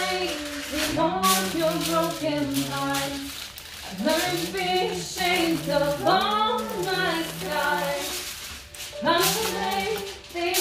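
Singing voice, holding steady notes a second or so long, with short pauses between phrases.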